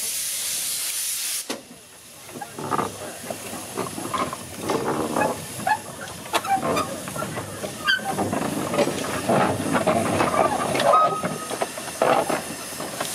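Narrow-gauge Orenstein & Koppel 0-4-0 well-tank steam locomotive blowing off a steady hiss of steam at its cylinders, which cuts off sharply about a second and a half in. After that come quieter, irregular sounds as the engine moves along the track.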